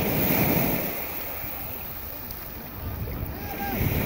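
Small waves washing up the beach in the shallow surf, swelling in the first second and again near the end, with some wind on the microphone.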